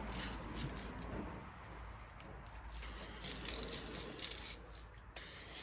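Aerosol spray paint can hissing as paint is sprayed onto a metal panel in bursts: a short puff just after the start, then a longer spray from about three seconds in, a brief pause, and spraying again near the end.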